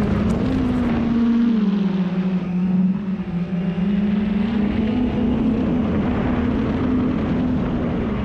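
Large 12S X-class FPV drone's motors and propellers whining in flight, heard from the onboard camera over wind noise. The pitch drops about a second and a half in and climbs back about three seconds in.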